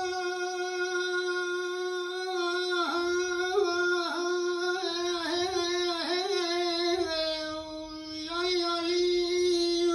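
Kurdish dengbêj singing unaccompanied: one voice holds a long, high note with quick dips and turns in pitch, and cuts off at the end.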